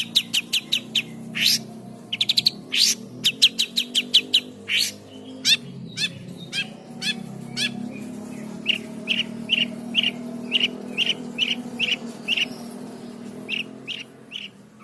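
Long-tailed shrike (cendet) singing a dense string of sharp chirps and fast trills. From about nine seconds in it settles into a steady run of evenly spaced notes, about three a second.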